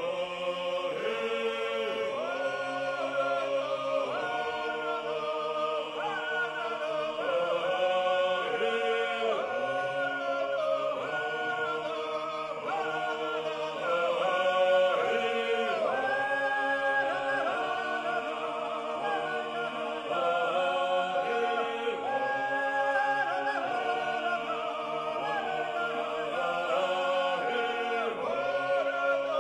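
A choir singing in several parts, the voices holding long notes and moving from chord to chord together.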